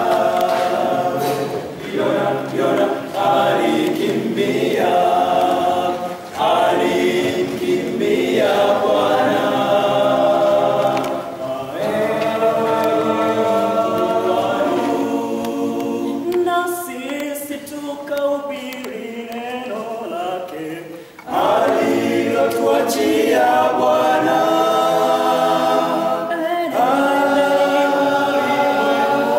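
A small group of young men singing a hymn a cappella in harmony, with a softer passage about two-thirds of the way through before the full voices come back.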